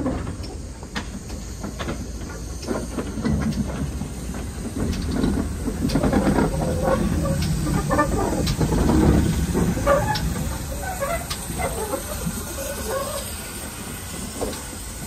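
GWR 4575-class 2-6-2 tank locomotive 5553 rolling slowly past, steam hissing, with scattered clanks and clicks from its wheels and motion. It is loudest about halfway through, as the engine passes closest.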